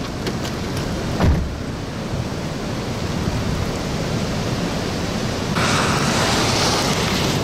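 Steady rush of wind and heavy rain from the tornadic storm, with a single thump about a second in. Near the end the rush turns louder and hissier.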